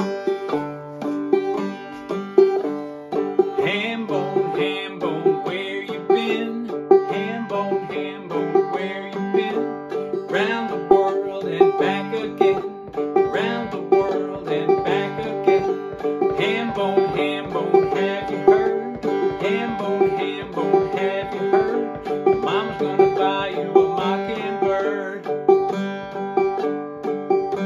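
Five-string banjo played clawhammer (frailing) style in a steady, even rhythm. It alternates brushed strokes on the third and fourth strings with thumb plucks on the fifth string, the 'three, three, thumb, four, four, thumb' pattern.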